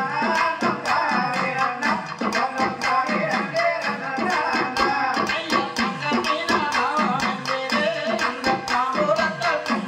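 Kummi folk dance music: a man's voice sings a melody over a quick, steady percussion beat.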